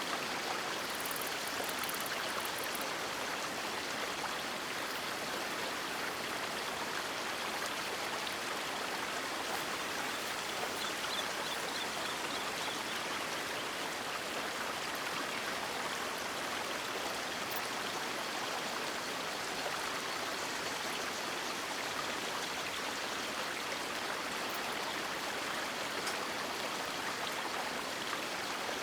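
Water of a river flowing in a steady, even rush.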